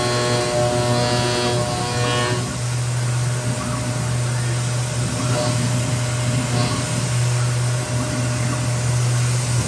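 CNC-converted Grizzly G0704 benchtop mill running its belt-driven spindle and end-milling a metal part, with a steady low hum throughout. For the first two and a half seconds the cut rings with several steady pitched tones, then the sound turns noisier and more even as the tool lifts clear and the machine moves on.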